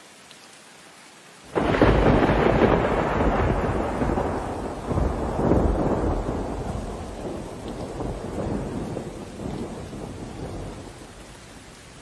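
Thunder: a sudden clap about a second and a half in, rolling on with several swells and slowly dying away, over a steady hiss of rain.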